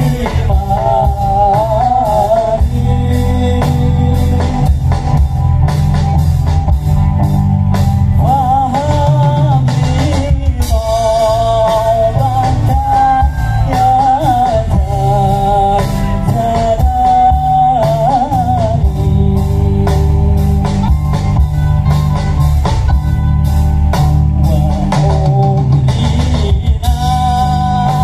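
Live band music played loud through a large PA sound system: a singing voice carrying a wavering melody over drums, guitar and heavy bass.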